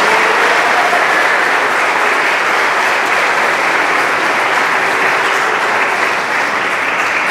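Audience applauding steadily after an award winner is named.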